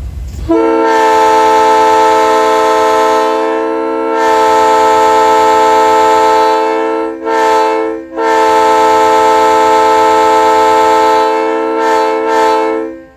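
Vintage locomotive air horn blown in one long, very loud chord of several notes, lasting about twelve seconds with a brief dip and two short breaks near the middle before cutting off. It is loud enough to make teeth vibrate.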